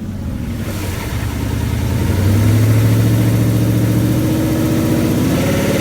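A 2011 Ford Mustang GT's 5.0-litre V8, started cold, held at raised revs with a knocking noise in it: the dealer takes it for piston slap, the owner suspects a failing rod bearing. The revs rise about two seconds in, hold steady, and rise slightly again near the end.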